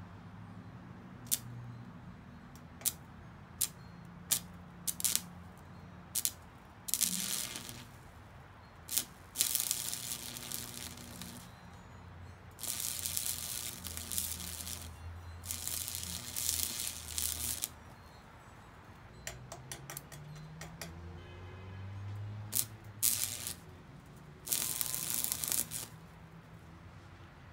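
Campbell Hausfeld 115-volt stick welder arcing on a 1/16-inch rod at its low setting. First comes a string of sharp ticks as the rod is touched to the iron railing to strike an arc. Then come several bursts of crackling, each a few seconds long, as short beads are laid, with the arc breaking off between them.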